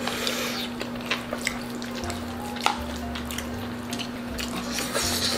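Close-miked eating sounds: a spoon clicking and scraping against a bowl and wet chewing of black-bean-sauce rice, a series of short sharp clicks with a little stirring noise.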